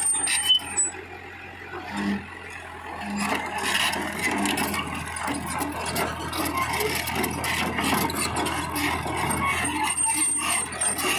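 Hyundai hydraulic excavator working, its engine running under a mix of irregular rattles and knocks, with a brief lull about a second in.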